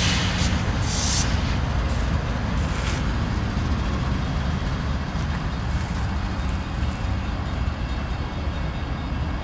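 Union Pacific intermodal freight train rolling past, a steady low rumble of diesel locomotives and railcars. A few short hisses come in the first three seconds.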